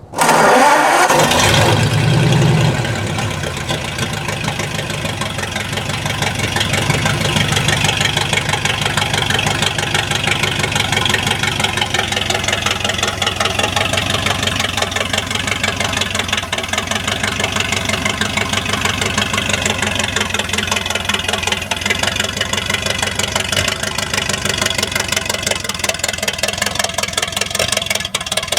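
A 1951 Ford flathead engine catching right at the start, running louder for the first couple of seconds, then settling into a steady, somewhat rough idle. It sounds loud through its short exhaust pipe.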